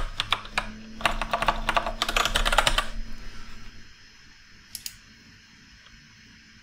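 Typing on a computer keyboard: a quick run of keystrokes through the first three seconds, then a single click about five seconds in.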